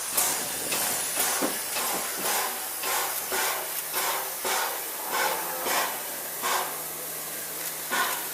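Steam locomotive hissing steadily, with a string of sharp knocks about every half second to second as the train rolls slowly.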